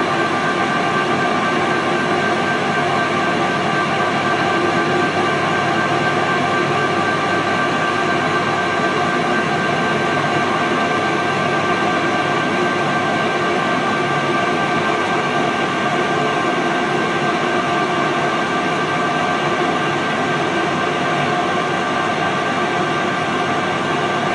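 Engine lathe running, its spindle and chuck turning a steel bar while the cutting tool takes a turning cut: a steady mechanical hum with many fixed tones.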